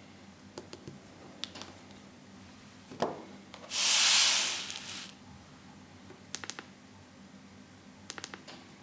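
Handheld camera handling noise: a knock about three seconds in, then a loud rushing scrape lasting about a second as the camera is swung across the table. Scattered light clicks and taps come before and after, a quick cluster near the end.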